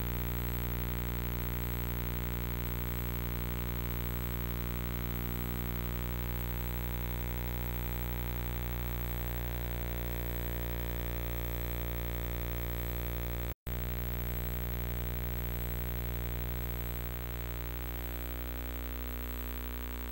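Steady low electrical buzz-hum with many evenly spaced overtones, a thin high whine and hiss, and no game sound. It cuts out for a split second about two-thirds of the way through.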